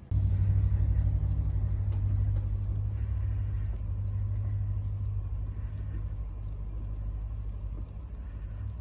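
Honda Accord 2.4-litre four-cylinder i-VTEC engine running at idle, a steady low hum that is loudest at first and eases down over the seconds as the idle settles. It is the test run after the VTC strainer and gasket were replaced.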